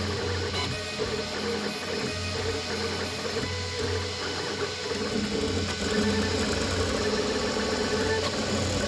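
Annex K3 3D printer printing PLA+ at high speed (250 mm/s, 20,000 mm/s² acceleration). Its stepper motors whine and buzz in tones that change pitch every fraction of a second as the print head darts back and forth, over a steady hum.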